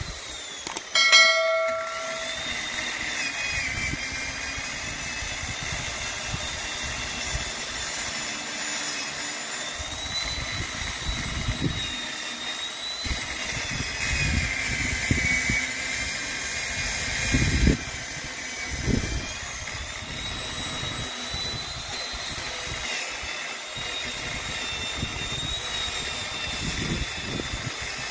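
Chainsaw running as it cuts into a tree branch, its high whine rising and falling in pitch with the load. A short bright chime sounds about a second in.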